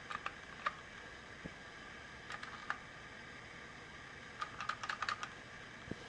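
Elevator hall call buttons, Otis-style square Lexan pushbuttons, pressed by hand: small sharp clicks in three short groups, the last a quick run of several presses.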